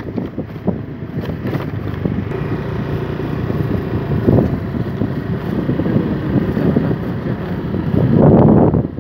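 Wind rushing over the microphone of a moving motorcycle, with the engine running underneath. The wind noise surges louder about eight seconds in.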